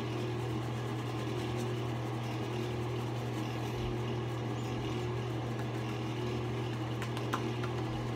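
A steady low mechanical hum, unchanging throughout, with a few faint clicks about seven seconds in.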